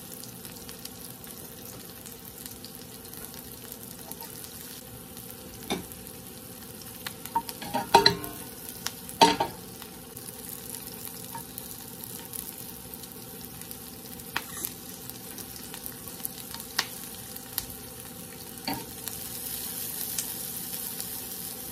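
Broccolini and garlic sizzling steadily in hot butter and olive oil in a stainless sauté pan. A utensil clinks against the pan now and then, loudest twice about eight and nine seconds in.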